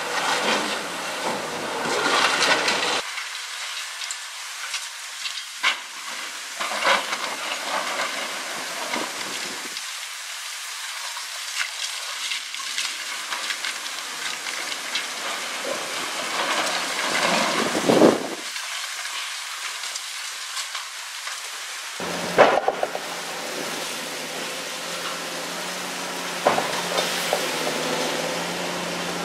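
Concrete wall crunching and cracking in the hydraulic crusher jaws of a Caterpillar 345C L long-reach excavator, with broken rubble falling and the steady hiss of a dust-suppression water spray. There are two loud cracks, about 18 and 22 seconds in, and after the second a steady low engine hum joins.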